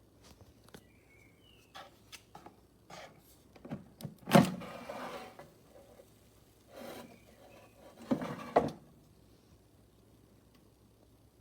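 Handling noises: scattered light knocks and rubbing, with a loud knock about four seconds in and a short clatter of knocks around eight seconds.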